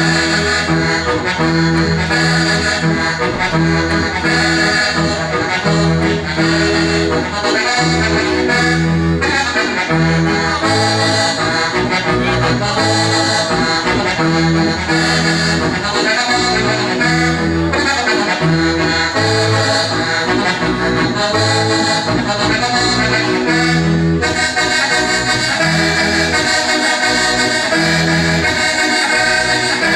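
Sardinian organetto (diatonic button accordion) playing a logudoresa seria dance tune, its held melody chords over a steadily pulsing bass line.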